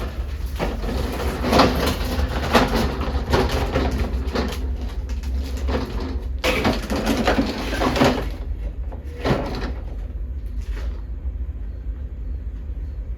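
A lawn mower being wheeled and shifted into place, rattling and clattering for about eight seconds, then a few lighter knocks.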